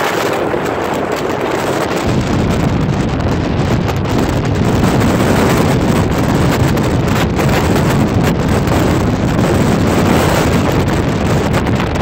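Strong gale wind buffeting the microphone: a loud, steady rush that grows heavier and more rumbling about two seconds in.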